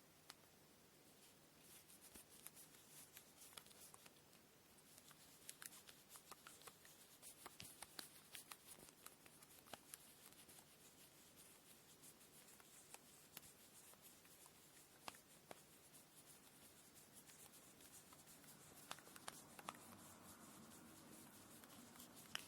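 Faint handwork sounds of cotton thread being handled while a kumihimo braid is prepared: soft rustling and rubbing with many small, light clicks and ticks. The rustle gets fuller near the end.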